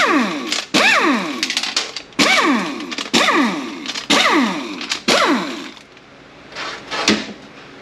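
A handheld power tool run in short trigger pulls, about one a second. Each pull starts with a click and winds down in pitch as 10 mm bolts are run out. The pulls stop about six seconds in, and a single knock comes about a second later.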